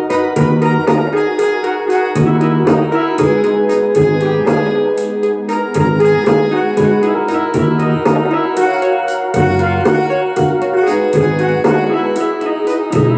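Korg Pa50SD arranger keyboard played live: a melody over a steady drum beat and bass line.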